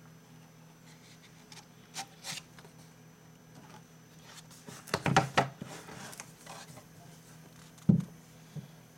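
A hardcover comic book being handled: a couple of light clicks, then pages riffling and rustling about five seconds in, and a single thump near the end.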